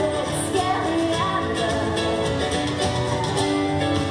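Live acoustic pop-rock band music: strummed acoustic guitar with sustained chords and held notes.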